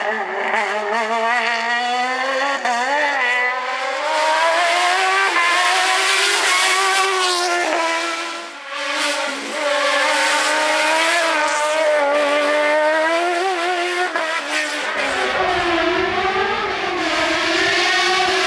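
Suzuki motorcycle engine in a Fiat 126 slalom racer, revving hard. The revs rise and fall over and over as the car accelerates and brakes between cones, with a brief lift about halfway through. A low rumble joins the engine note near the end.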